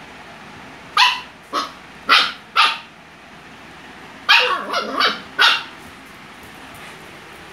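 Husky puppy barking in short, high barks: four about a second in, then another quick run of four around four to five and a half seconds in. The barks are startled barks at a coconut rolling on the floor.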